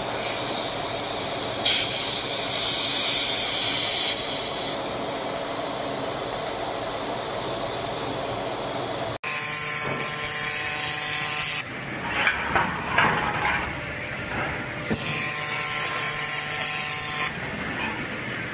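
Handheld laser welder at work: a steady hiss with a hum under it, louder for a couple of seconds near the start. About halfway the sound cuts to another welding clip with the same steady hiss and a few short louder spurts.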